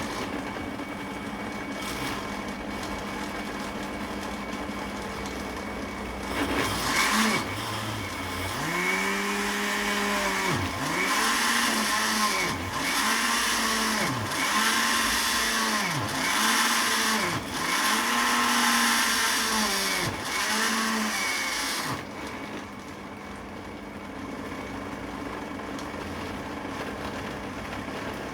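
Electric blender motor running with a steady hum. From about six seconds in it gets louder, and for some fifteen seconds its pitch dips and recovers about every second and a half. It then settles back to a quieter, steady run.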